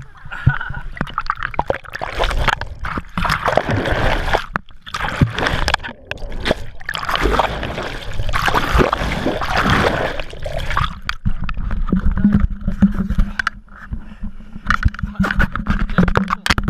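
Sea water rushing, splashing and gurgling against an action camera as it is dragged through the waves and dunked under the surface, with choppy surges and sudden dropouts. About two-thirds of the way through a steady motorboat engine hum comes in under the water noise.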